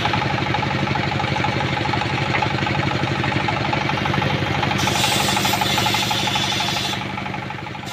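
Engine-driven portable circular sawmill: the engine runs with a fast, even beat while the big saw blade spins, and from about five seconds in the blade cuts through mahogany for a couple of seconds with a hissing rasp over the engine. The sound starts to fall away near the end.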